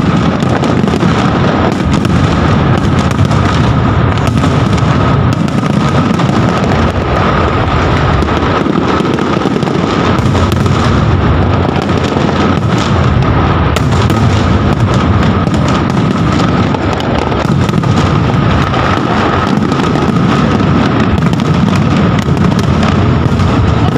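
Aerial fireworks bursting in a dense, continuous barrage, bangs and crackles overlapping with no gaps between them.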